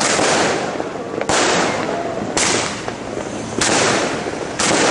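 Aerial fireworks bursting overhead: five sharp bangs about a second apart, each trailing off before the next.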